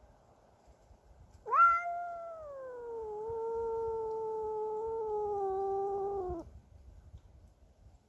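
Domestic cat giving one long, drawn-out yowl (caterwaul): it breaks out sharply about a second and a half in, loudest at the onset, then holds a steady, slowly sagging wail for about five seconds before stopping. A territorial, aggressive yowl at a neighbour's cat intruding on her territory.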